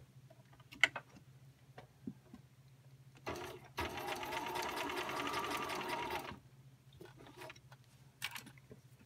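Bernina 1010 home sewing machine running a straight stitch: a sharp click about a second in, then the machine starts about three seconds in, stitches steadily for about three seconds and stops, with light fabric handling around it.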